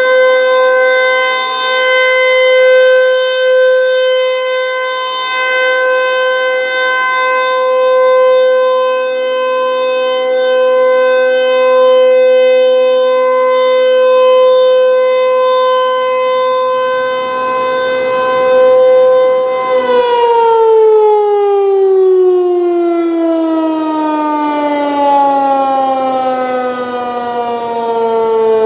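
Federal Signal 508-128 outdoor warning siren sounding a steady alert tone, swelling and fading in loudness every few seconds. About two-thirds of the way in, the tone starts sliding steadily down in pitch as the siren winds down at the end of its test cycle.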